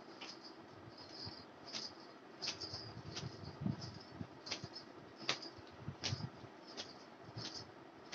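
A towel being swung and slapped against long wet hair to dry it: about ten soft swishing slaps, one roughly every three-quarters of a second.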